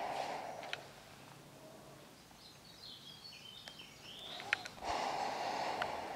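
Two breathy rushes of a person's breathing with a few sharp clicks of steps on a debris-strewn floor, and a short run of bird chirps in between.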